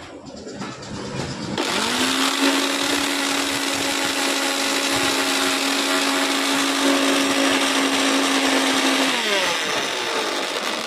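A small electric appliance motor switched on about a second and a half in. It quickly spins up to a steady high-speed whir, runs evenly for several seconds, then winds down with falling pitch near the end.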